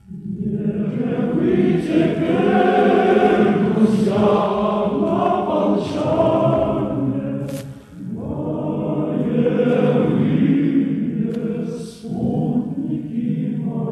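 Choir singing in long, sustained phrases that swell and break off briefly about eight and twelve seconds in.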